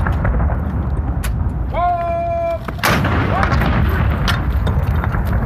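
Salute cannon firing a blank round: one sharp blast about three seconds in, with fainter reports before and after it. A long drawn-out call is held just before the blast.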